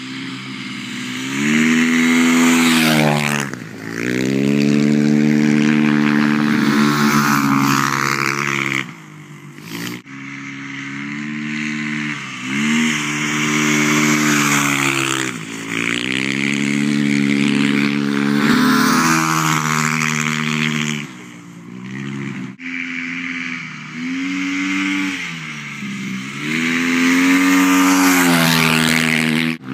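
Motocross bike engine revving up and down over and over as it rides across the snow, the pitch climbing under throttle and dropping back each time. The sound breaks off abruptly twice and picks up again.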